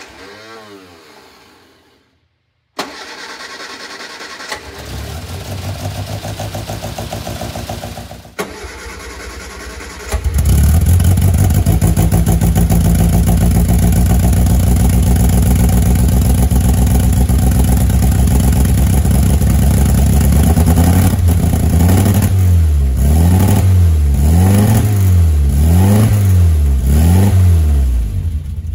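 1960 Austin-Healey Sprite's four-cylinder engine cold started after long standing: the starter cranks it for several seconds, it catches about ten seconds in and runs steadily, then is revved up and down about five times near the end.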